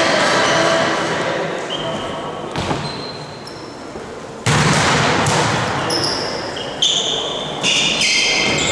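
Volleyball being played: the ball is struck and bounces, and from about six seconds in there are several short high-pitched squeaks of shoes on the court floor.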